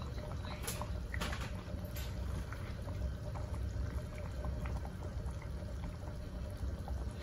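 Pot of butter, chicken-broth and vinegar sauce simmering on the stove: steady bubbling with small scattered popping ticks over a low hum.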